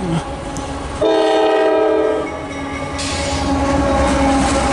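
Diesel locomotive's air horn sounds one chord-like blast of about a second, with fainter tones trailing after it. Then the locomotive passes close by, its engine and wheels making a loud, steady rush with a low rumble.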